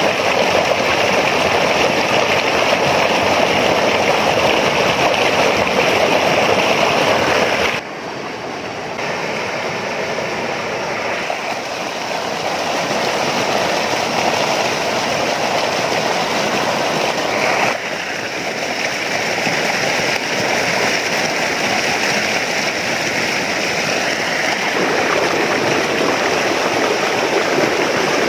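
A swollen stream in flood rushes over a low concrete weir: a loud, steady noise of pouring water. It drops somewhat in level about eight seconds in and shifts again later.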